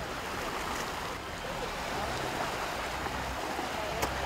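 Steady rushing and sloshing of river water as a baby elephant swims and wades through it.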